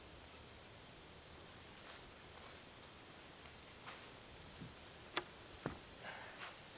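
Insect trilling in rapid pulses, about ten a second, in two runs with a short break. A little past halfway, a sharp knock and then a dull thump as the sawn timber is handled.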